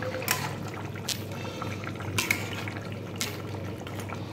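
Watery fish curry with potato and brinjal boiling in a wok: a steady bubbling with a few brief, sharper pops.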